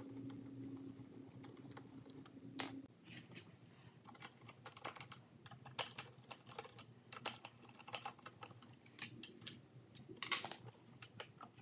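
Faint, irregular metallic clicks and scrapes of a hand nut driver turning out small 5/16 bolts from the air filter housing on a Briggs & Stratton lawn mower engine, with a few sharper taps as tool and bolts are handled.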